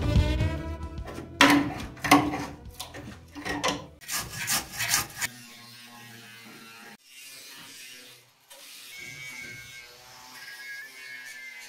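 Angle grinder on sheet metal in short loud bursts through the first five seconds, then a quieter stretch of background music over a low hum.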